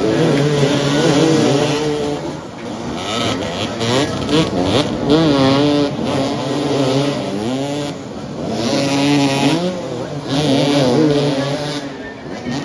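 Several motoball dirt bikes revving hard, their engines overlapping and rising and falling in pitch as the riders throttle on and off. Louder surges come about a second in, around five seconds, and again around nine and eleven seconds.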